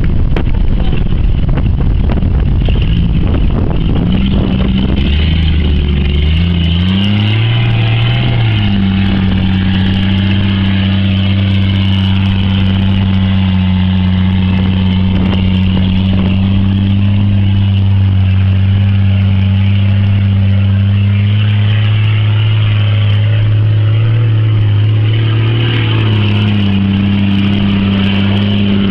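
Off-road 4x4's engine revving up in steps over the first several seconds, then held at steady revs as a constant drone, shifting pitch again near the end. There is a rough rumble at the start.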